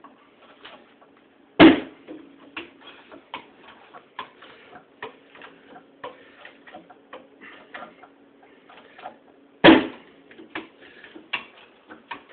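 Seized piston in a Ruston engine being forced along its cylinder by a hydraulic bottle jack: an irregular run of small clicks and ticks, with two loud sharp cracks, one about two seconds in and one near ten seconds, as the stuck piston breaks loose in jumps.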